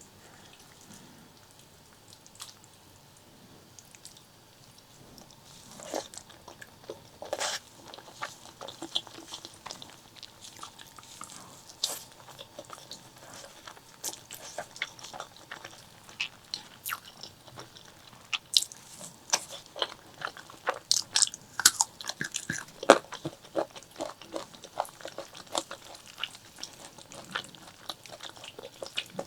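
Close-miked eating sounds: wet chewing, biting and crunching in irregular short clicks and smacks, sparse at first and growing denser and louder after the first few seconds.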